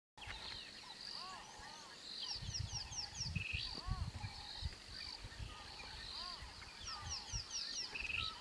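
Birds calling in the African bush: short arched whistles and quick, high, falling notes repeating in a pattern every few seconds, over irregular low thumps and rumbles.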